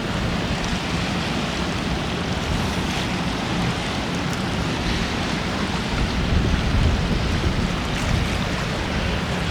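Strong wind buffeting the microphone: a steady rushing noise with a heavy, fluttering low rumble.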